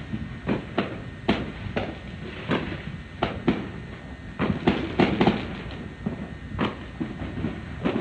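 Fireworks going off across a city: a dozen or so sharp bangs and pops at irregular intervals, some in quick clusters, over a steady low rumble.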